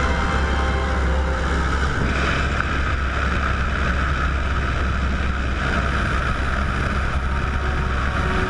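De Havilland Tiger Moth biplane in flight, heard from its open cockpit: a steady engine and propeller drone under heavy wind rush on the microphone.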